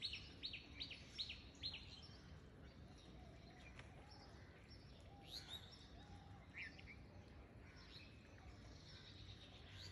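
Near silence with faint bird chirps in the background: a quick run of about five short chirps, each falling in pitch, in the first two seconds, then a few scattered chirps.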